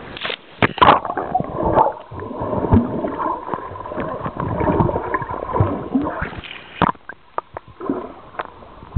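Pool water heard from underwater: a splash of a child plunging into the pool in the first second, then bubbling, gurgling and muffled knocks as she swims under the surface, with scattered sharp clicks near the end.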